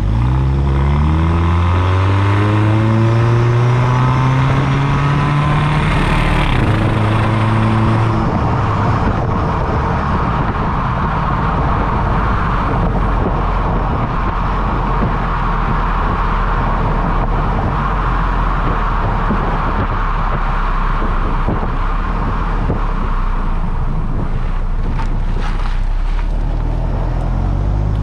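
2010 Ford Fusion accelerating: its engine pitch rises for about six seconds, the automatic transmission shifts up twice, and then it cruises with a steady mix of engine and road noise.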